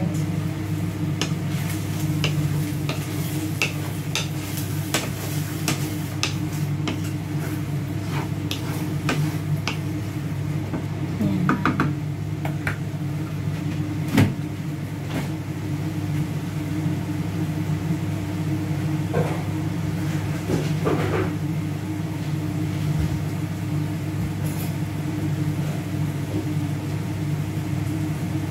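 A cooking spoon clinking and scraping against a pan in irregular clicks while the food is mixed, with one louder clank about halfway through, over a steady low motor hum.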